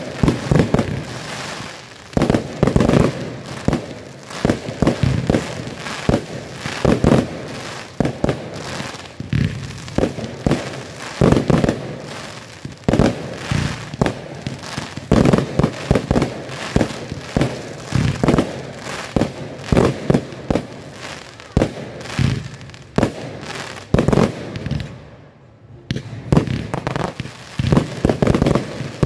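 Aerial fireworks display: shells and comets bursting in quick succession, a dense run of loud bangs with a brief lull near the end.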